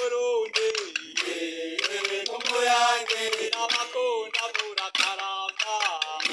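Burundian traditional drummers chanting, a sung line that slides up and down and breaks into short phrases, with sharp clicks scattered throughout.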